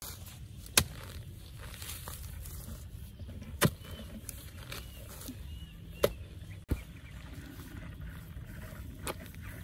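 A long-handled digging tool striking and prying at dry soil in a crab burrow: about four sharp knocks a few seconds apart over a steady low rumble.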